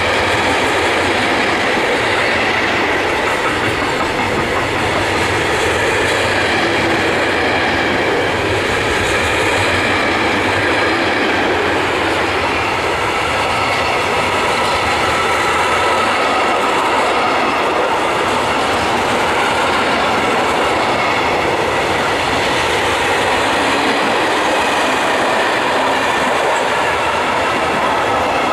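Container flat wagons of a freight train rolling past close by: a loud, steady noise of steel wheels running over the rails, with faint steady ringing tones above it.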